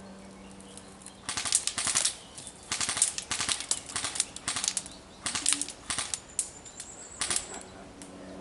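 Airsoft guns firing on full auto: seven or eight short bursts of rapid, clattering shots, beginning about a second in and ending near the end.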